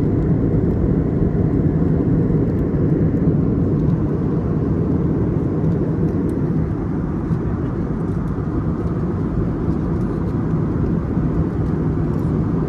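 Steady cabin noise of an Airbus A321neo in flight: a low, even rush of engine and airflow noise with a faint steady hum underneath, easing slightly about halfway through.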